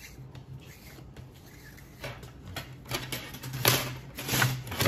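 Clear plastic tubing and cord being handled: scratchy rustling and light clicks, sparse at first, then louder and busier from about two seconds in.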